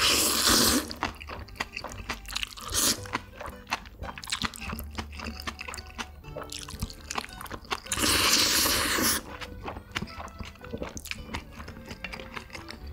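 Close-miked eating of spicy fire noodles and bean-sprout bulgogi: rapid crunchy chewing clicks, with two loud slurps, each about a second long, one at the start and one about eight seconds in.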